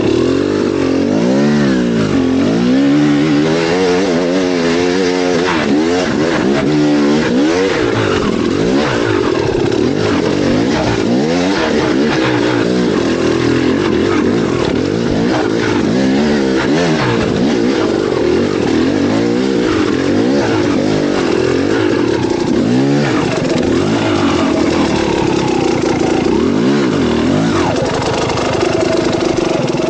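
An engine revving up and down continuously, its pitch rising and falling every second or two, over a steady rush of noise.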